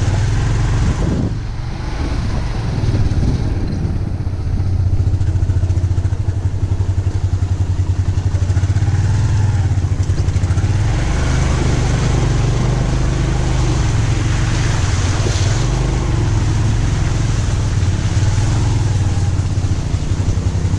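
Motorcycle engine running steadily while riding, with a brief dip in level about a second and a half in.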